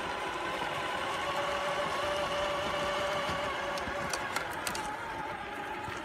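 Traxxas TRX-4 Ford Bronco RC crawler's brushed electric motor and gearbox whining steadily as it drives, with a few sharp clicks about four seconds in.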